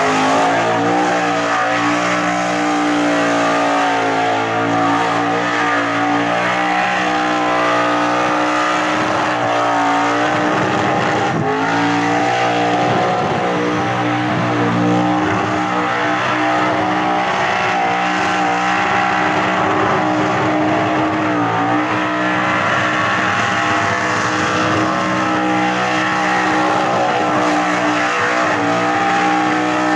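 Supercharged V8 in a Holden Commodore held at high revs through a long burnout, the rear tyres spinning and squealing on the pad. The engine note dips briefly about eleven seconds in and again around twenty-one seconds, then climbs back.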